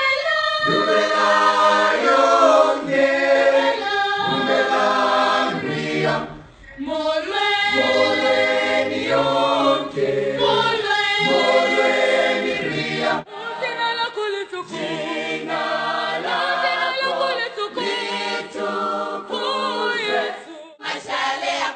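Kenyan youth choir singing together. About 13 seconds in, the sound cuts to a different recording of the choir.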